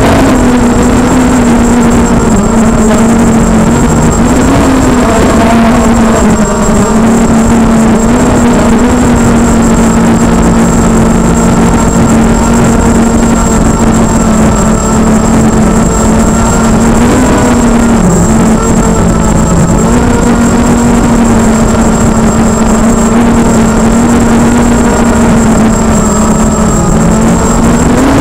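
FPV drone's motors and propellers buzzing loudly and steadily, heard close up through the onboard camera's microphone, with a rough rush of air underneath. The buzz holds one pitch and wavers briefly a few times, and a thin high whine runs alongside.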